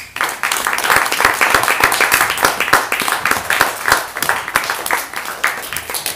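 A small group applauding: dense hand clapping that starts suddenly and thins out near the end.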